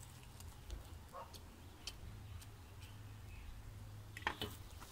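Bricks knocking lightly against each other as they are stacked by hand: a few scattered clicks, then a louder clatter of several knocks about four seconds in.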